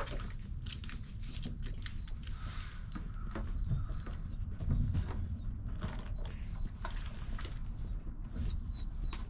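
Barn sounds of baby goats being handled: soft clicks, rustles and a low rumble as the kids move and rub against the microphone, with short high bird chirps every second or so.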